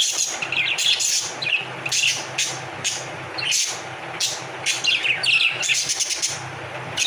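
Budgerigars chirping and chattering in short, sharp, irregular calls, over a steady low hum.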